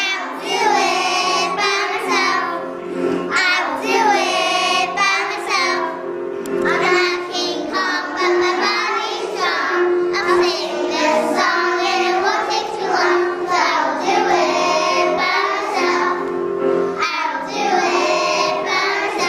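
A group of young children singing a song together in unison, over an instrumental accompaniment.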